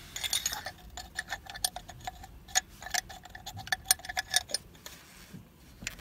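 A quick run of sharp, irregular clicks and light rattles as the engine oil dipstick with its plastic cap is pushed back into the filler neck and seated.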